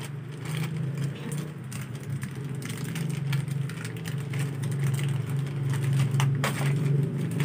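Plastic parcel packaging crinkling and rustling as a small package is handled and opened, in scattered crackles, over a steady low hum.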